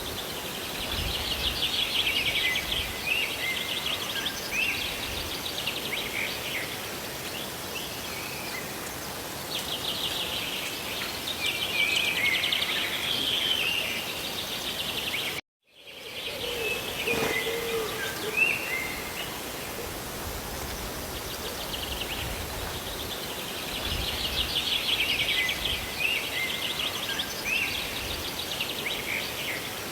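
Steady hiss of falling rain with birds singing in bouts of quick, high chirps: once near the start, again a little before the middle and just after it, and again near the end. The sound cuts out completely for a moment about halfway through.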